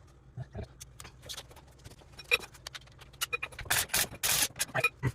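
Metal clinks, knocks and scraping from hands and tools working on a car's front suspension and CV axle, with two longer, louder scrapes about four seconds in.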